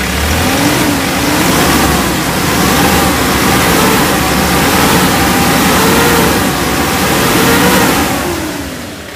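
Hyundai Porter II's common-rail diesel engine revved up and down several times, its pitch rising and falling, then dropping back near the end. This is a test of whether the low-power limit at 1,500 rpm is gone after the fuel pump's suction control valve was cleaned and calibrated.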